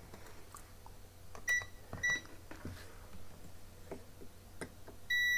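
Digital multimeter beeping: two short high beeps about half a second apart, then near the end its continuity buzzer starts a steady high tone as the probes meet a dead short on the board's 5 V DC-DC converter output, where a burnt Zener diode sits. Light taps of the probes on the board.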